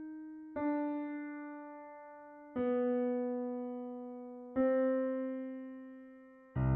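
Slow piano music: a chord struck about every two seconds and left to ring and fade, with a fuller, deeper chord near the end.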